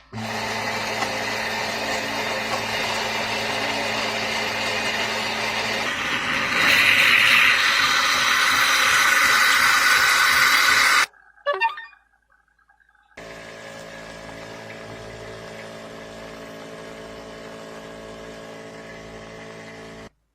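Philips Saeco PicoBaristo super-automatic espresso machine running: a steady pump hum that changes about six seconds in to a louder hiss, stopping suddenly partway through. After a short pause it starts again as a quieter, steady machine hum.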